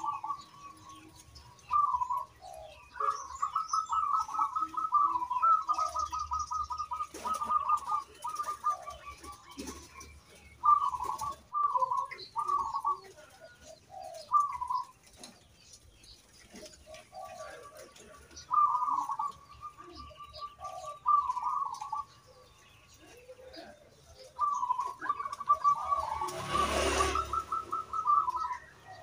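Zebra doves (perkutut) singing: repeated rolling, trilled coo phrases in bouts with short gaps. A brief rushing noise cuts across the song near the end.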